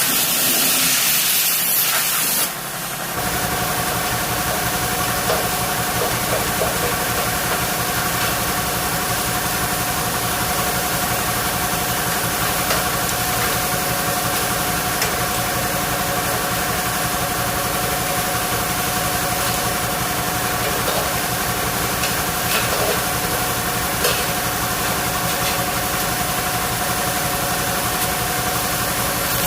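A machine motor running steadily with a hum of several steady tones over a hiss. A brighter, louder hissing over it stops about three seconds in.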